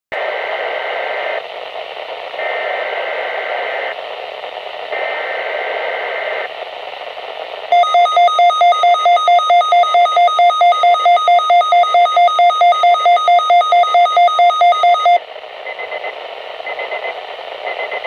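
Midland weather radio's speaker sounding the EAS/SAME alert sequence for a required weekly test: three screechy digital header bursts, then a loud alert tone pulsing about four times a second for roughly seven seconds, then three short end-of-message bursts.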